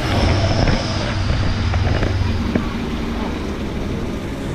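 Steady low rumble of a motor vehicle engine running, with a few faint clicks over it.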